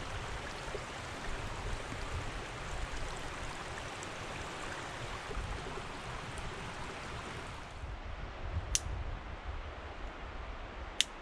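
Mountain stream rushing steadily. About eight seconds in it drops away abruptly to a quieter background, with a few sharp clicks near the end.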